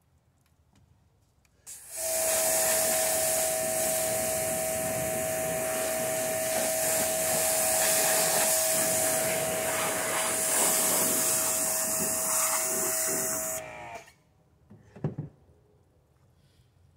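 A machine with a high-speed motor and rushing air switches on about two seconds in and runs steadily with a high whine. It shuts off after about twelve seconds, its whine sliding down as it winds down. A few short knocks follow.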